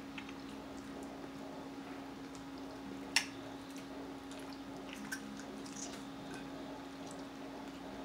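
Close-miked eating sounds from a seafood boil: soft wet chewing and squishing of corn on the cob and shellfish, with a few faint ticks and one sharp click about three seconds in, over a steady low hum.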